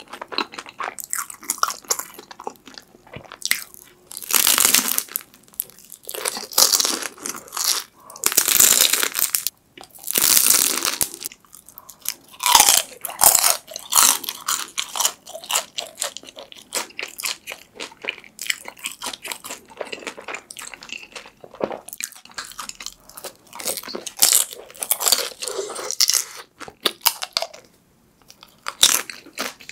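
Close-miked crunching and chewing of breaded sweet potato cheese sticks: a steady patter of small crunches, with a few longer, louder crunches in the first half.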